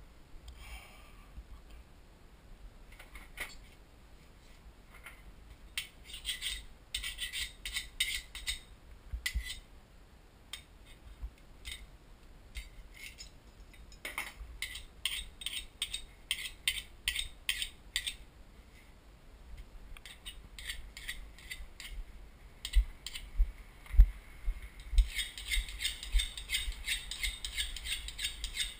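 Clicks and rattles from objects being handled and moved about, in short bunches, turning into a dense run of rattling over the last few seconds. Several dull thumps come in the later part, the loudest about three quarters of the way through.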